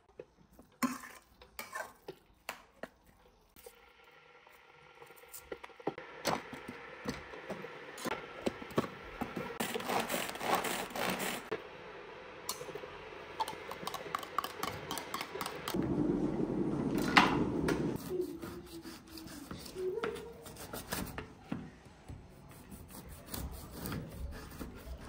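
Kitchen knife and pan work: a cleaver knocking on a wooden cutting board as it chops raw meat, then a spatula stirring meat and chopped onion in an enamel pan, scraping and rubbing. Near the end a cleaver saws through dried meat on the board.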